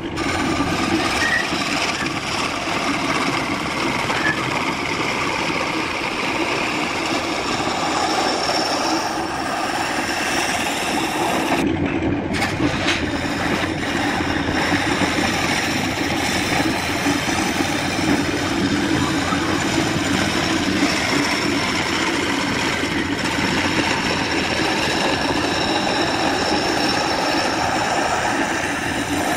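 Wood lathe running while a hand-held turning chisel cuts into a spinning areca-root blank, a steady whirring and scraping. The sound briefly drops out about twelve seconds in.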